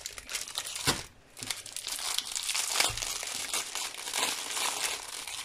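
Thin plastic packaging of a diamond painting kit crinkling continuously as it is handled, with two soft knocks, about a second in and again near three seconds.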